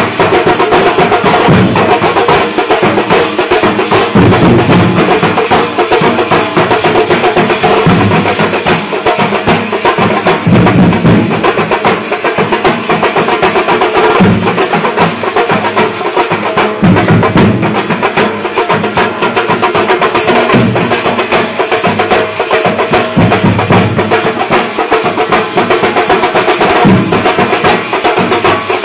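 Loud, continuous drumming by a marching troupe of drummers, many drums beaten together in a driving rhythm without a break.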